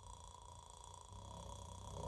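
Faint low snoring that starts about a second in and grows toward the end, over a faint steady whine.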